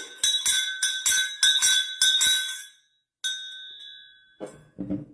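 Brass hand bell shaken rapidly, about ten quick clanging strokes over two and a half seconds with a steady high ring under them. After a short pause it rings once more and fades away.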